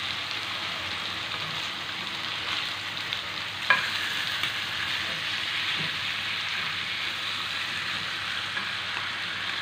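Boiled pork leg pieces sizzling in a frying pan with sautéed garlic and onion, a steady frying hiss as they are stirred with a slotted spatula. A single sharp knock comes about three and a half seconds in.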